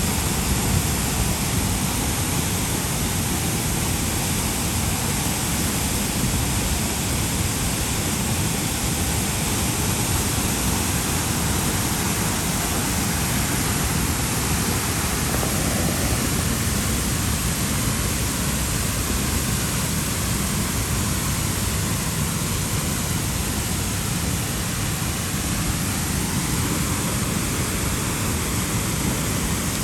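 Dray Nur waterfall: a steady rush of falling water.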